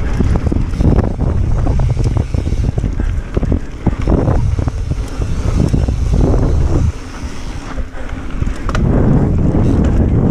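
Mountain bike ridden fast down a dirt trail: wind buffeting the microphone and tyres rolling over the dirt, with frequent clicks and rattles from the bike over bumps. The rush eases briefly about two-thirds of the way through, then picks up again.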